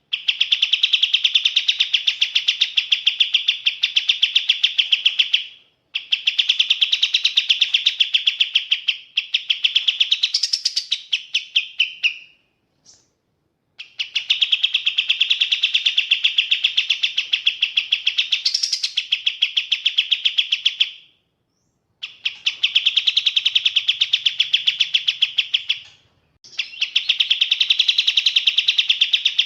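Kapas tembak bird singing long runs of fast, rapidly repeated high chirps at a steady pitch, each run lasting several seconds, broken by a few brief pauses.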